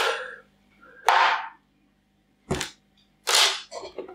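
Short handling noises on a tabletop: a brief rustle about a second in, a sharp knock about two and a half seconds in, then another rustle.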